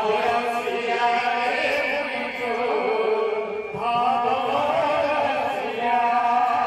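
Women's kirtan group singing a devotional chant over musical accompaniment, in long wavering sung phrases.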